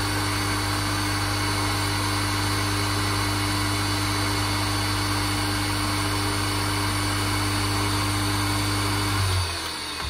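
Three-phase induction motor running on single-phase mains through start/run capacitors, giving a steady electrical hum and whine. About nine seconds in the hum drops away and the motor winds down.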